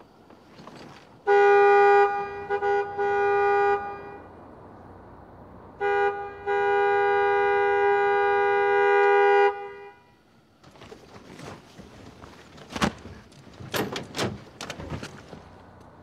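Car horn honking: a long blast broken into a few short toots, then a second blast held for about four seconds. A few sharp knocks follow near the end.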